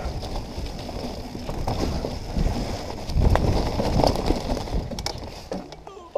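Mountain bike rattling and jolting down a leaf-covered dirt trail: tyres crunching over leaves and roots, with sharp knocks from the bike over bumps and wind rumble on the microphone. It is roughest a few seconds in and quietens near the end as the ride smooths out.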